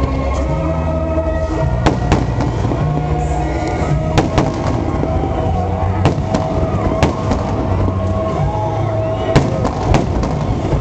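Aerial fireworks shells bursting overhead, with sharp bangs about once a second, several coming in quick pairs. Music plays underneath.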